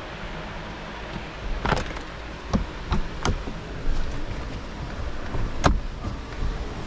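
About five sharp clicks and knocks spread over a few seconds, the loudest near the end, over a steady low hum.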